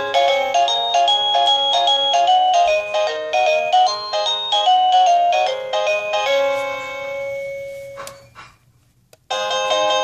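SadoTech doorbell receiver playing one of its electronic chime melodies, a fast tune of clean synthesized tones that fades out about eight seconds in. After a short pause the next chime melody starts near the end.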